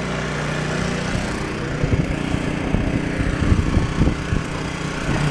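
Small engine of a snowblower running steadily, with irregular soft thumps over it through the middle.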